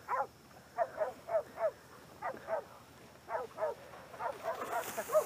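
Hunting bay dogs barking over and over in short barks, holding a wild hog at bay; the barks come faster near the end, with a rustle over them.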